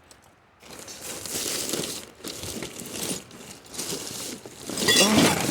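Plastic trash bags crinkling and rustling as they are torn open and rummaged through.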